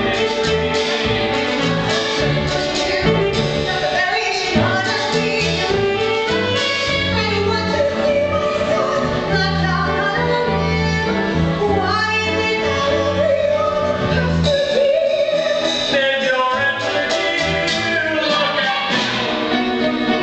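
Musical-theatre song: a woman singing over instrumental accompaniment with sustained bass notes.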